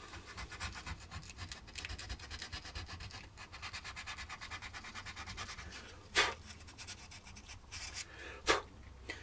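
Hand sanding of plastic-wood filler around the eye of a carved wooden duck decoy head: many quick, faint rubbing strokes, with two louder strokes in the second half.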